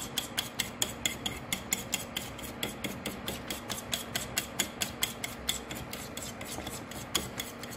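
A metal fork beating an egg mixture in a shallow dish, its tines clicking against the dish in an even rhythm of about five strokes a second over the slosh of the liquid.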